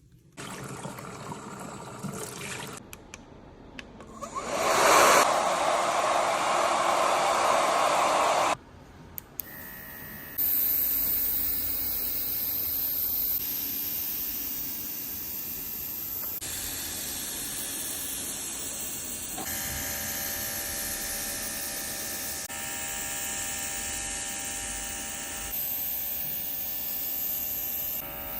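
A few seconds of hissing water spray from a salon shower head at the scalp, then the steady whoosh and motor hum of a hair dryer running.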